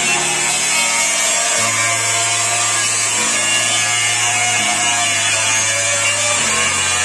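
Electric angle grinder running steadily against the edge of a steel shovel blade, a continuous high-pitched grinding noise without a break.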